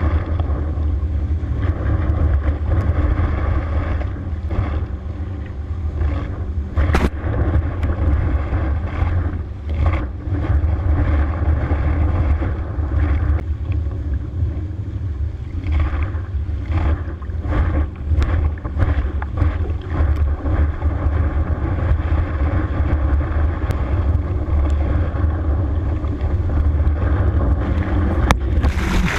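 Motorboat engine droning steadily under the rushing, spraying water of a wake, heard from an action camera on a wake surfboard, with wind buffeting the microphone. Near the end, water splashes over the camera.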